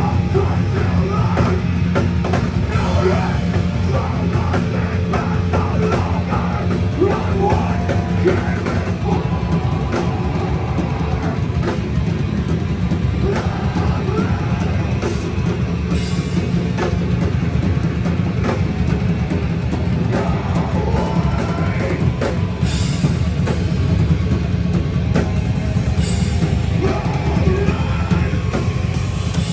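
A hardcore punk band playing live and loud: drums, bass and heavy guitars in one continuous wall of sound.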